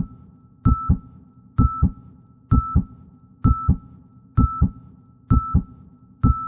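Synthesized heartbeat sound effect: a double low thump repeating about once a second, each beat paired with a short high beep like a heart monitor's.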